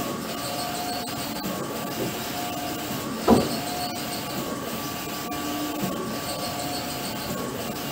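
Wide-format inkjet banner printer running, its print-head carriage whirring back and forth in passes of about a second each. A single short, loud thump about three seconds in.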